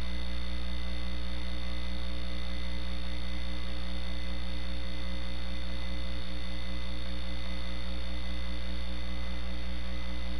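Steady electrical hum from the chamber's sound system, several fixed tones held unchanging with a faint hiss underneath.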